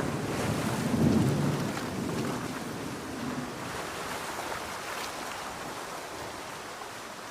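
Heavy rain falling steadily, with a low roll of thunder at the start that fades out over the first couple of seconds.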